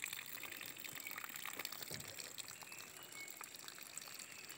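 Faint trickle of water running out of a cut in a tree root, with small scattered ticks.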